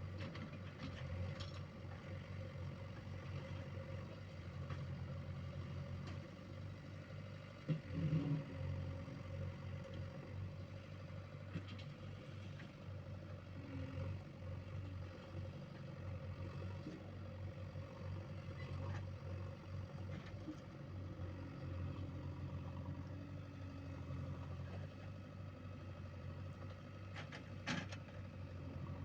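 JCB 3DX backhoe loader's diesel engine running steadily, with a few short knocks, the loudest about eight seconds in and another near the end.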